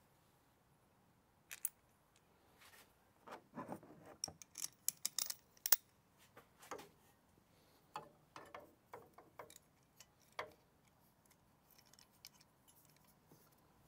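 Clicks, taps and light rattles of the aluminium oil catch can and its metal bracket being handled and fitted back against the firewall in the engine bay. A quick flurry of ticks comes in the middle, then sparser single taps, fading near the end.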